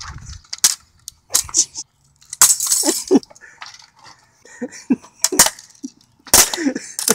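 Clattering, snapping and clicking of a smashed portable DVD player's cracked plastic casing, circuit board and disc drive as they are picked up off concrete and pulled apart, in a series of scattered sharp cracks.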